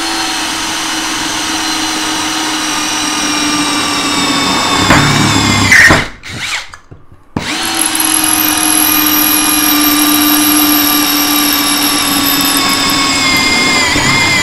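JPT 21V brushless cordless drill boring into a 1-inch steel pipe: a steady motor whine with the bit grinding on metal, growing louder and rougher just before it stops about six seconds in. It starts again after a short pause and runs on, its pitch dipping slightly near the end.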